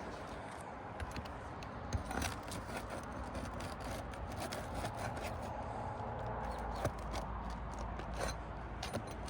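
Scraping and rubbing of a snake tool (shingle fastener remover) worked under asphalt architectural shingles to pull nails, with scattered clicks and knocks.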